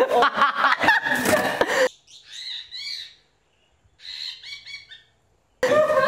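Shrieking, very high-pitched laughter for about two seconds. Then come two short runs of high chirping squeals like a dolphin's or parrot's calls, with dead silence between them. Loud laughter and voices return near the end.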